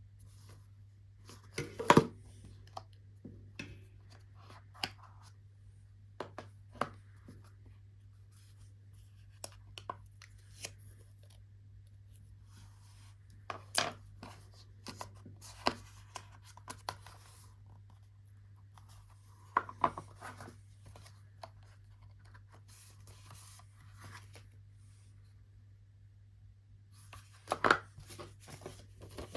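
Hands handling a small product box and its packaging: scattered taps, clicks and short rustles, with a few louder clicks and a busier stretch near the end, over a steady low hum.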